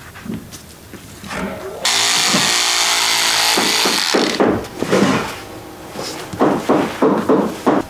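Handheld electric rotary cloth cutter running for about two seconds as it cuts through printed fabric: a steady motor whine with blade noise that starts suddenly and stops. After it comes irregular rustling as the cut fabric is gathered and handled.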